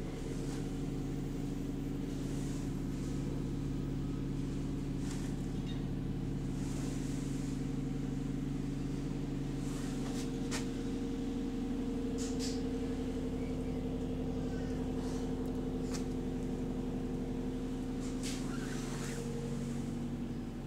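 A bus's engine cooling fan running inside the bus, a steady droning hum with several even tones. The pitch dips slightly near the end, and faint clicks and rattles come through now and then.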